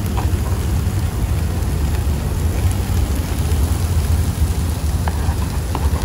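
Shrimp, chicken and asparagus sizzling on a grill pan over a portable gas stove, under a steady low rumble. A few light clicks of metal tongs against the pan come near the end.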